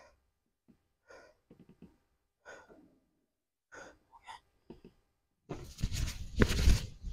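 A man breathing in short, separate breaths, then, from about five and a half seconds in, a louder run of thuds and scuffs as he springs up off a wooden plyo box in a single-leg jump and lands.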